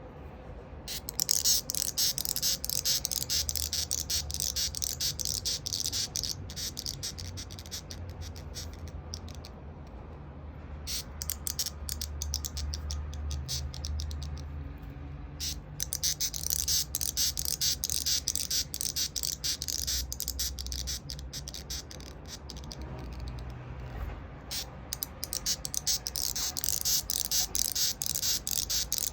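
White-striped longhorn beetle (Batocera lineolata) stridulating with the sound organ at its neck: rapid, harsh rasping squeaks given as a defensive warning. The rasping starts about a second in, stops briefly a few times and resumes.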